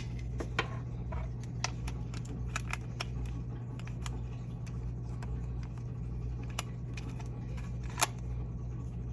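Small clicks and taps of batteries being handled and put to a test, with one sharper click near the end, over a steady low hum.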